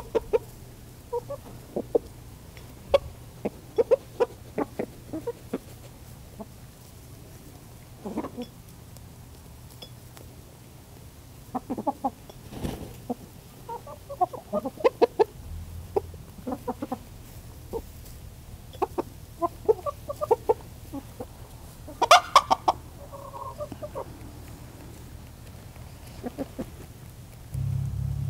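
Backyard chickens clucking in scattered short calls and quick runs of notes, including the rooster's food call to the hens, with one louder call about two-thirds of the way through. A low truck-engine rumble comes in near the end.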